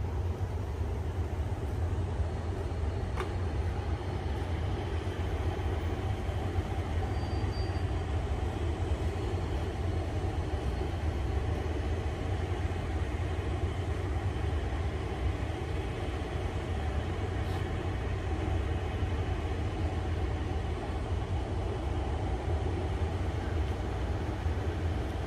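KiHa 183 diesel railcar set running slowly on the approach into a station: a steady low rumble from its engines and running gear.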